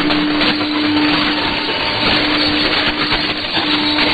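Weak shortwave AM signal on 6100 kHz through an SDR receiver, mostly heavy static hiss with a steady low tone that drops out twice, and no clear programme audio.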